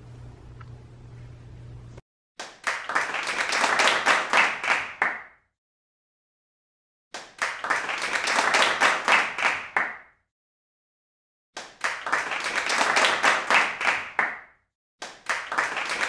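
A burst of quick hand clapping, about three seconds long, repeated four times with dead silence between, like the same clapping sound effect looped. A faint low hum comes before the first burst.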